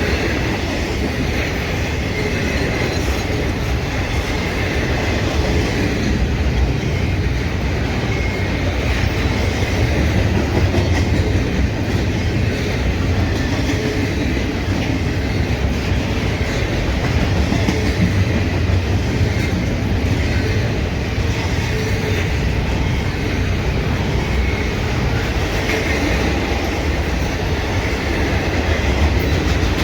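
Norfolk Southern freight train's cars rolling steadily past, their wheels clacking over the rail joints.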